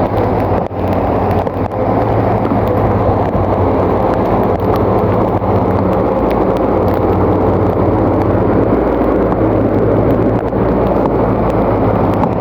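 Bulldozer's diesel engine running steadily at high revs.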